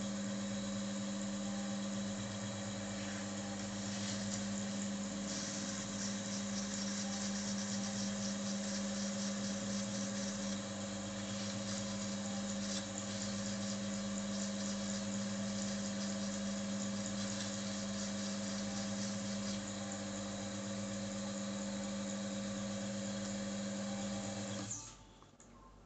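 Electric motor of a bench oil friction tester running with a steady hum while the oil is wiped off its spinning test shaft. A scratchy hiss comes and goes over it in the first half, and the motor stops about a second before the end.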